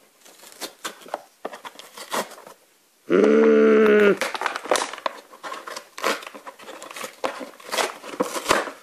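Cardboard and clear plastic blister packaging of a Disney Infinity figure crackling and crinkling as it is pulled open by hand. About three seconds in, a loud held vocal sound lasts about a second.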